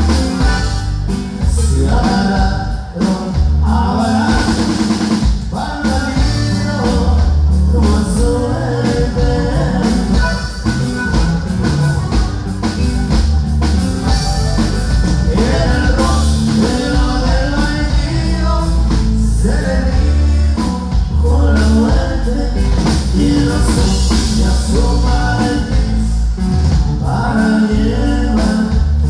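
Norteño band playing live: electric bass, acoustic guitar and drums, with a sung vocal line over a steady beat.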